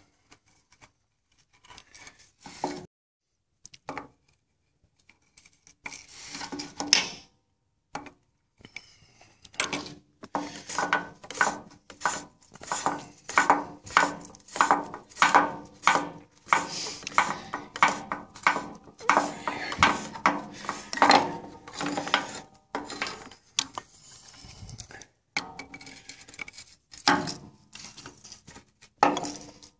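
Steel adjustable wrench clicking and clinking against the metal body of a Detroit Series 60 DDEC V electronic unit injector as the injector body is snugged up. It starts with a few scattered clicks, then runs through a long stretch of quick, ringing metal strokes, about two a second, that thin out near the end.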